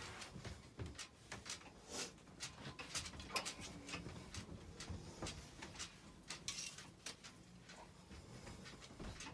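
Faint, irregular clicks and knocks with light rustling, the handling and movement noise of someone stepping and moving about inside a small camping trailer's room.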